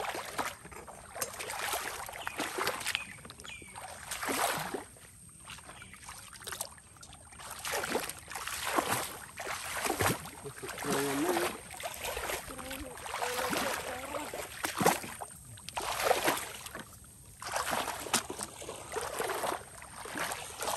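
Legs wading through shin-to-knee-deep water, a sloshing splash with each step, irregularly about once a second.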